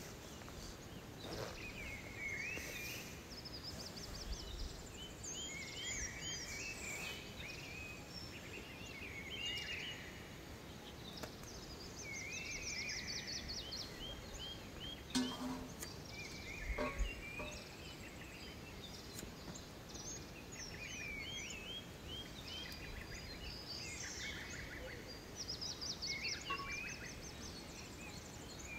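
Birds chirping and trilling in many short repeated phrases, with two sharp knocks about halfway through.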